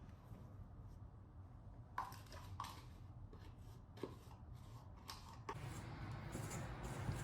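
A handful of light clicks and rustles of something being handled, then a low rumble that grows louder near the end.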